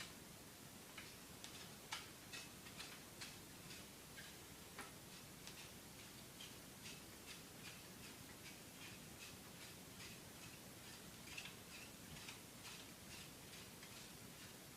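Faint light ticks and clicks, about two or three a second and unevenly spaced, as the top pole of a MiniPlane paramotor cage is screwed into its fitting.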